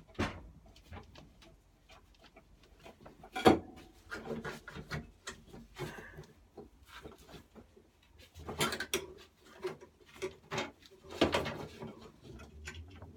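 Scattered sharp metal clinks and knocks of hand tools and bolts as a lawnmower handlebar is unbolted, with light rubbing between them. The loudest knock comes about three and a half seconds in, with more around nine and eleven seconds.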